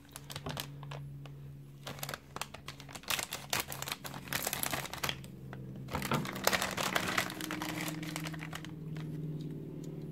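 Plastic Hot Wheels blind-bag packet crinkling and crackling as it is handled and torn open, with a steady low hum underneath.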